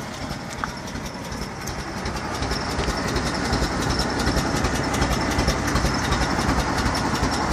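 Exhaust of a 1955 Fargo truck's engine running through its stock mufflers: a steady exhaust note that grows louder over the first few seconds, then holds.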